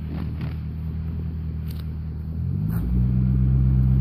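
Chevrolet Corvette C6's V8 engine idling, then rising in pitch and getting louder about two and a half seconds in as the car pulls away slowly.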